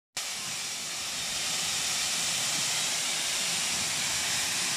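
Great Western steam tank locomotive venting steam low at its front end: a steady, loud hiss, swelling a little about a second in.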